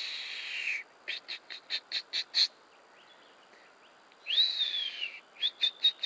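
A person whistling an imitation of a hawk's call, twice. Each time comes a long descending whistle, then a run of short, sharp whistles.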